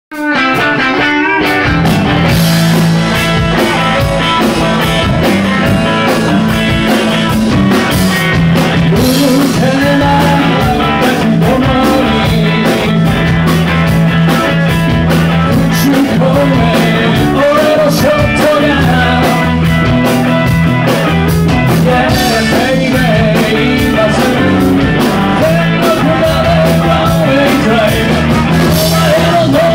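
Live rock-and-roll band playing loud: two electric guitars, electric bass and a drum kit.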